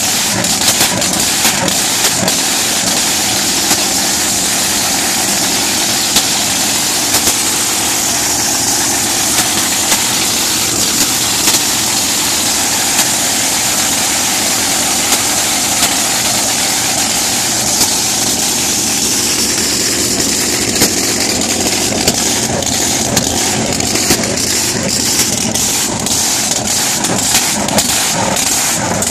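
Supercharged alcohol-burning Hemi V8 with a 14-71 roots blower, running at a loud, steady idle in a drag boat, with sharp crackles every so often that grow more frequent near the end.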